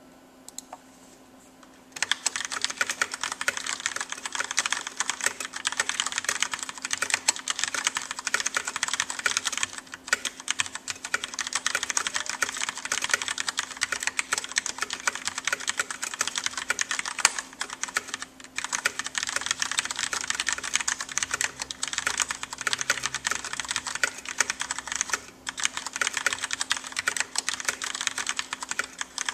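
Rapid, continuous typing on a Filco Majestouch 2 mechanical keyboard with Cherry MX Black switches, a dense stream of key clicks that starts about two seconds in and pauses briefly three times.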